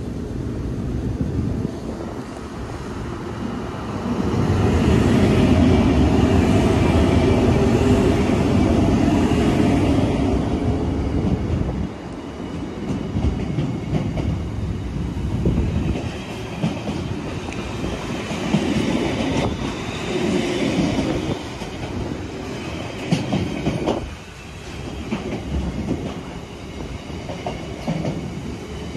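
A Freightliner Class 90 electric locomotive passes hauling an intermodal container train. It is loudest as the locomotive goes by a few seconds in, followed by the rhythmic clatter of the container wagons' wheels over the rail joints.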